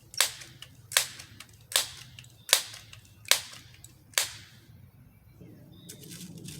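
Crosman 1377 multi-pump air pistol being pumped between shots: six short, sharp strokes of the pump lever, evenly spaced about one every 0.8 seconds, ending a little past the middle. It is charging the pistol with air for the next shot.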